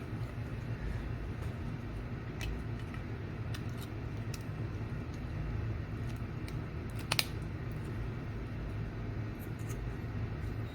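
A few small, sharp clicks and taps from handling an IC chip and pressing it into a socket on a circuit board, the loudest a little past the middle, over a steady low background hum.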